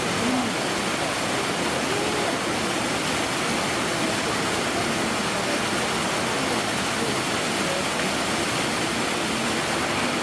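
Steady rush of running water, with faint distant voices murmuring underneath.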